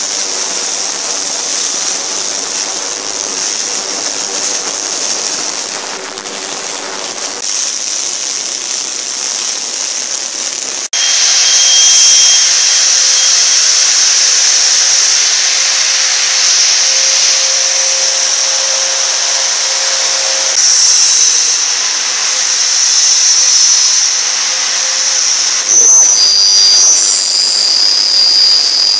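Automatic ultrasonic cleaning machine for carbide inserts running: a loud, steady, high-pitched hiss with a faint whine from its pumps, ultrasonic tanks and hot-air dryer. It cuts suddenly to a louder, brighter hiss about a third of the way in.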